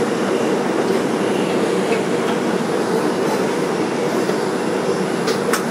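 Steady rumble and hum inside a 2001 Bombardier R142 subway car, with a couple of faint clicks near the end.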